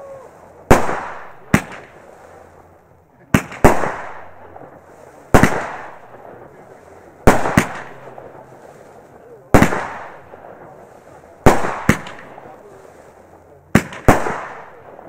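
Fireworks battery firing shell after shell, seven shots about two seconds apart. Each is a sharp bang, most of them doubled by a second bang a fraction of a second later, and each fades off before the next.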